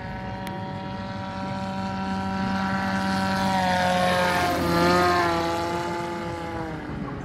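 Arrowcopter AC20 model gyrocopter, driven by a Hacker Q80 electric motor and pusher propeller, making a low pass: the propeller whine builds up, is loudest about five seconds in, then drops in pitch and fades as it goes by.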